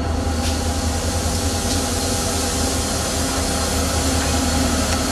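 Reading & Northern diesel locomotive approaching and passing close by, its engine running with a steady drone under a hiss of wheels on the rails. The hiss comes up about half a second in, and the whole sound grows slightly louder as the locomotive nears.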